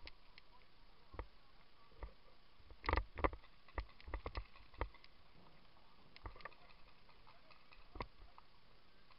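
Paintball markers firing: scattered sharp pops, with a quick run of shots between about three and five seconds in, the loudest near three seconds.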